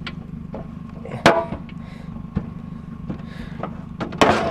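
Sharp metal clanks and knocks from a barbecue grill being pried apart while a bent pin is worked out of it. There is a loud strike about a second in, a lighter one a little later and a quick cluster near the end, over a steady low hum.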